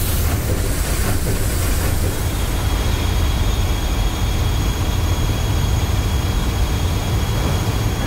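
Large ship's machinery running: a steady deep rumble with hiss, and a faint thin high whine from about two seconds in until near the end.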